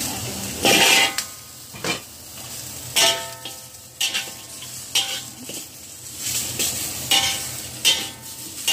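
Metal spatula scraping and knocking against a wok, about once a second, with a ringing note on several strokes, as goose feet and sea cucumber are stirred in hot oil over a low sizzle. The loudest clatter, about a second in, is the food being tipped into the wok.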